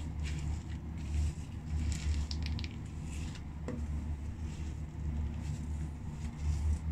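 French fries crunching and crackling under socked feet as they are trampled and ground into the floor, in scattered short bursts, over a steady low rumble.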